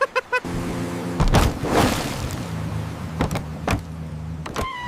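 A low steady mechanical hum that starts about half a second in, with a rushing whoosh about a second later and a few sharp clicks near the end.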